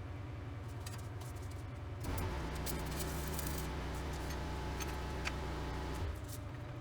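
Welder arc running for about four seconds, a steady electrical hum with dense crackle that starts and stops abruptly.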